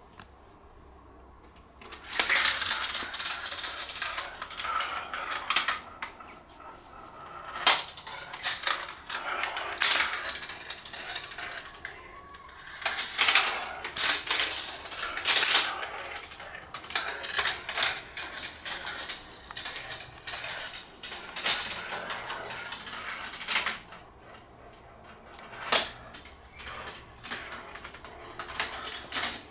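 Marbles running down a GraviTrax marble run: a continuous rolling rattle along plastic tracks and rails, broken by many sharp clicks and clacks as the balls drop and hit track pieces. It starts about two seconds in.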